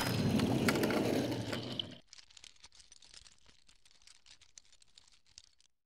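Logo-animation sound effect: the tail of a whoosh, a noisy rush that fades out over about two seconds, leaving near silence.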